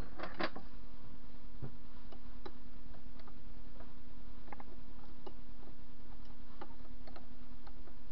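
Light metal clicks and taps as a cutting tool is fitted and clamped in a lathe's four-way tool post, a couple of louder clinks in the first half-second, then scattered ticks over a steady hum.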